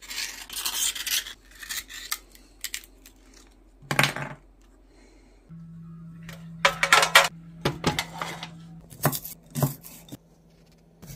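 Kitchen sounds from preparing greenlip mussels. A knife scrapes at a mussel shell, mussel shells clatter against a metal oven tray, and a knife chops garlic on a wooden board. A steady low hum starts about halfway through.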